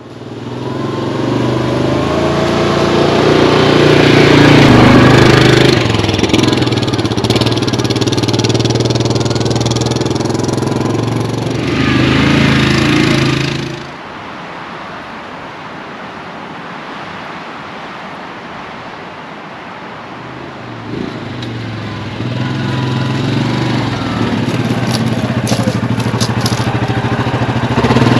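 Yamaha Grizzly 700 ATV's single-cylinder engine running while riding, a steady engine note. About 14 seconds in, the engine note drops out to a quieter steady rush, and it comes back about 21 seconds in.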